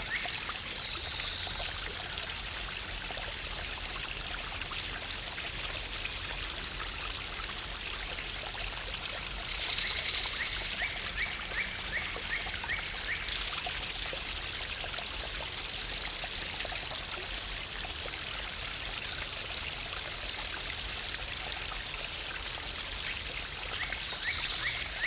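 Waterfall's steady rushing water, with a bird calling over it: a short falling phrase followed by a quick run of ticking notes, heard at the start, about ten seconds in, and again near the end.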